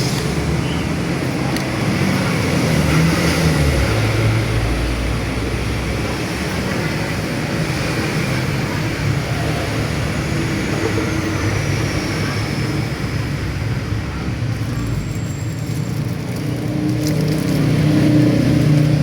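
Motor vehicle traffic: engines running and passing, a steady loud noise with engine tones that rise and fall.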